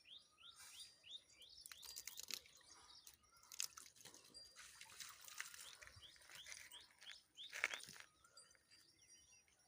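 Faint small-bird chirping, a run of short downward-sliding chirps, with scattered crunches and scrapes; the loudest is a short rasp near the end.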